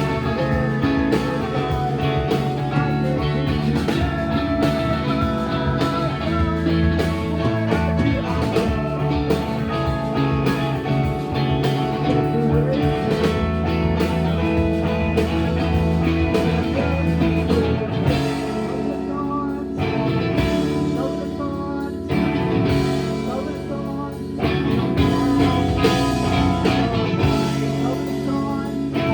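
Live rock band playing, with guitar prominent. The full sound thins out for a few seconds about two-thirds of the way through, then comes back in.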